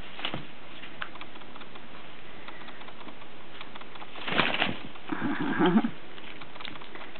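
A rooster scuffling with a sock-covered foot on carpet: a few light taps, then a flurry of wing flaps and scrabbling about four seconds in, followed by a short low voice-like sound.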